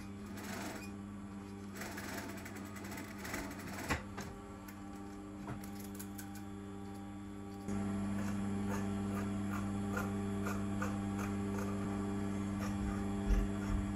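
Industrial sewing machine: its motor hums steadily while the needle stitches satin fabric at first, with a click about four seconds in. About halfway through, the hum suddenly grows louder and carries on steadily with light ticks over it.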